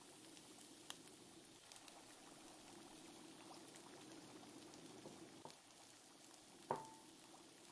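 Faint bubbling of a tomato sauce simmering in a pan, with scattered small pops and a single sharp clink with a short ring near the end.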